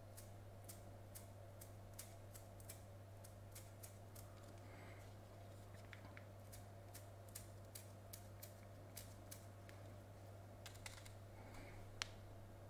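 Faint, irregular ticks, about two or three a second, as a thumb flicks across the stiff bristles of a paint-loaded toothbrush to spatter thinned red paint onto a miniature. There is one sharper click near the end.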